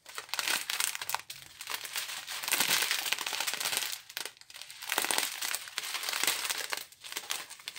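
Strips of small plastic drill bags crinkling and crackling as they are handled. The crinkling comes in several stretches with short pauses between them.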